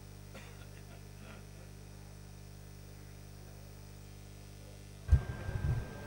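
Steady electrical mains hum on the broadcast audio. About five seconds in, a sudden loud low thump is followed by a second of rustling noise.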